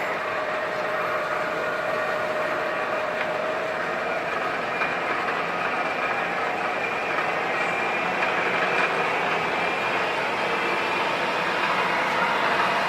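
Bridgeport milling machine running: a steady mechanical whir with a whine of several tones that slowly rise in pitch.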